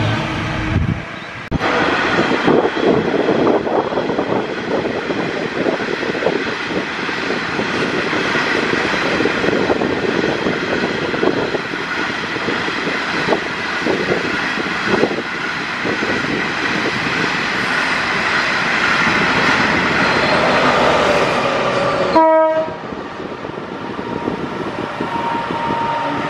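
A train running through a station: loud rolling noise of wheels and carriages on the track, with a horn. The sound breaks off sharply about 22 seconds in and gives way to a quieter steady tone.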